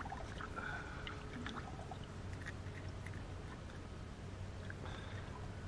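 Faint handling sounds of a perch being unhooked by hand: a few small clicks and rustles over light water sounds and a low steady hum.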